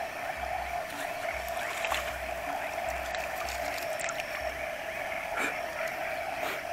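A steady night chorus of frogs and insects, a dense unbroken buzz, with soft low bumps every second or so and a few faint clicks.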